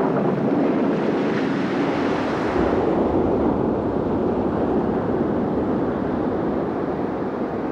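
Ocean surf rushing in all at once, then a steady heavy wash of water that slowly eases off.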